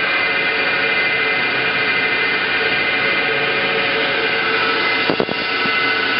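Pratt & Whitney Tape Drill Mate CNC drilling machine running in its automatic cycle: a steady mechanical whine, with a short clatter of knocks about five seconds in.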